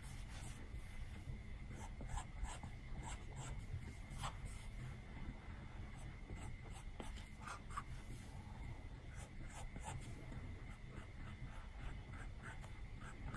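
Apple Pencil tip tapping and stroking across an iPad's glass screen: irregular light taps and short scratchy strokes over a faint steady hum.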